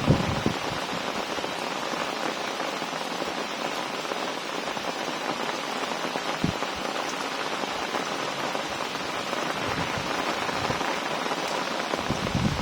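Heavy rain falling steadily, an even hiss with a couple of brief low knocks.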